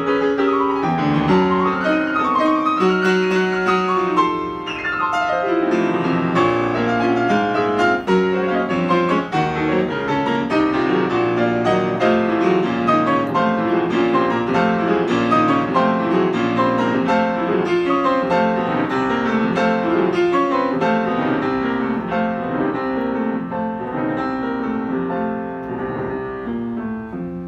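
Steinway grand piano played solo: a fast, dense passage of many notes, with a rapid descending run about four seconds in. The playing grows a little softer near the end.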